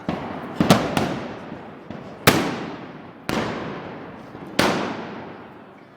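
Gunpowder blasts going off one after another, about five loud bangs a second or so apart with smaller cracks between them, each trailing a long echo.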